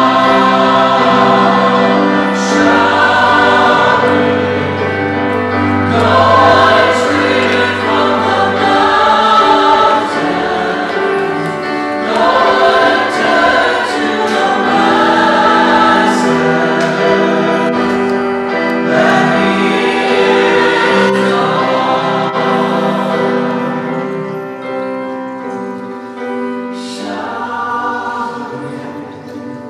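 Choral music: a choir singing over steady held accompanying notes, getting quieter near the end.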